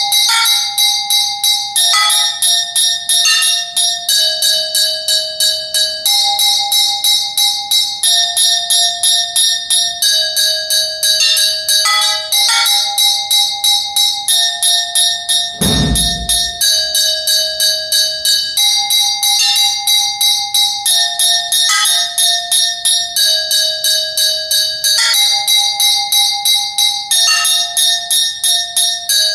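Resonant metal percussion struck with sticks in a fast, even stream of ringing clinks, the set of pitches changing every second or two. About halfway through comes a single low drum thud.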